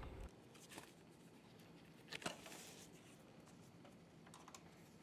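Near silence: room tone with a faint click just under a second in and a brief soft click and rustle about two seconds in.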